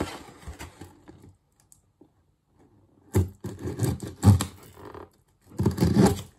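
Cardboard mailer box being torn open along its tear strip and handled: scraping and ripping cardboard, loudest in a cluster about halfway through and again near the end.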